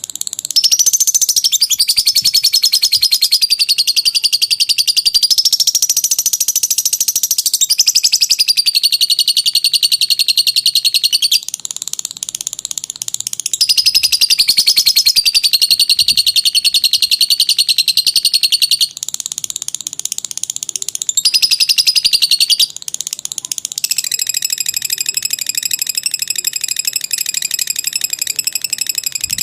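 Lovebird singing its long chattering 'ngekek' song: a fast, buzzy, high-pitched trill held for several seconds at a time, in a few long runs broken by short pauses.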